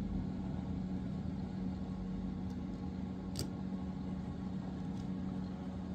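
A steady low hum, with one faint click about three and a half seconds in.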